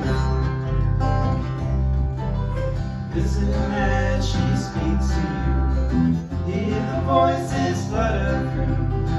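Live acoustic string band playing a country-folk song: strummed acoustic guitars with mandolin over a steady bass pulse.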